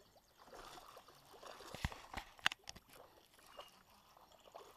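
A hooked largemouth bass splashing at the surface as it is reeled to the boat, with light water trickling and splashing. Two sharp knocks stand out a little before and after the middle.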